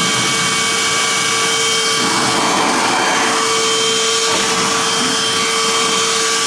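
Homasy 14.8-volt cordless handheld wet/dry vacuum running with a steady high motor whine while sucking up spilled juice, with a rougher rushing sound about two seconds in.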